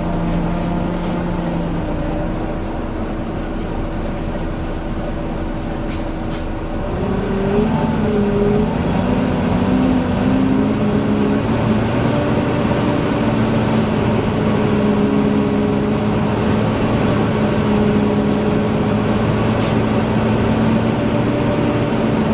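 Volvo Wright Eclipse Gemini double-decker bus running with its loud whining 'hoover' drone, the vacuum-cleaner-like note that enthusiasts give that name. About seven seconds in the notes step up in pitch and grow louder, then hold steady.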